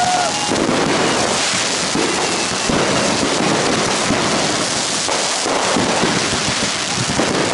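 Aerial fireworks going off in a dense barrage: many shells bursting and crackling over one another into a continuous rattle, with a whistle trailing off at the very start.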